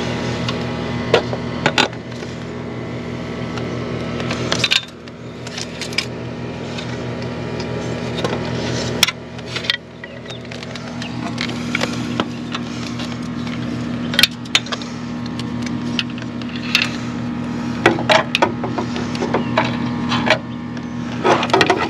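Scattered clicks, knocks and rubbing from a metal LED floodlight being handled and positioned against a ladder and the eaves, over a steady low hum.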